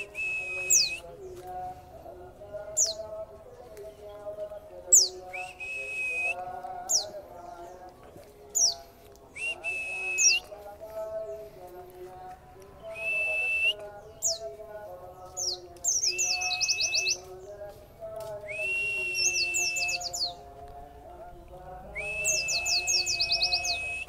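Caged pleci (white-eye) calling and singing: short, sharp down-slurred whistles every second or two, and several longer phrases of a held note with quick trills, the longest near the end. A fainter wavering sound lies lower underneath throughout.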